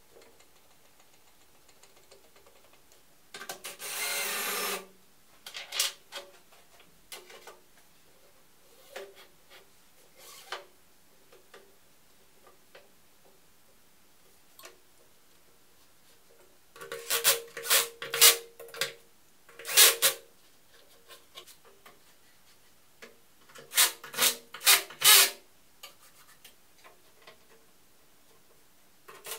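3D-printed plastic carriage blocks on bearing rollers being slid along steel rods and set in place. There is one continuous rubbing slide about three to five seconds in, then scattered light knocks, and two clusters of sharp clacks in the second half.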